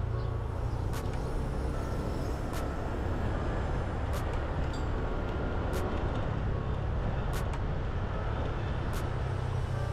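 Vehicle driving through city traffic: a steady low engine and road rumble with faint sharp ticks about every one and a half seconds.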